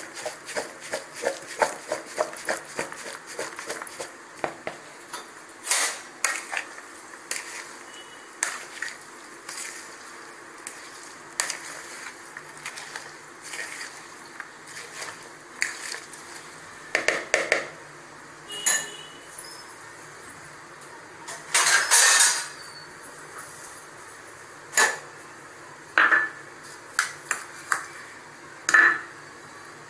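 A spoon clinking and scraping against a bowl as chopped fruit salad is stirred. It opens with a quick run of light taps, then scattered single knocks, with one longer, louder rattle a little past the middle.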